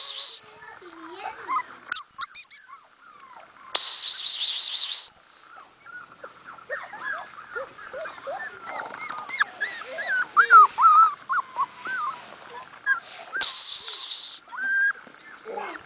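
Puppy whimpering and whining in many short squeals that bend up and down, busiest around the middle. Twice, a high hissing burst about a second long cuts in, about four seconds in and near the end.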